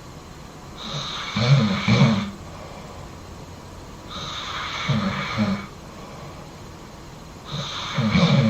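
A person snoring loudly in their sleep: three snores about three seconds apart, each a low rattle with a breathy rush, quieter breathing between.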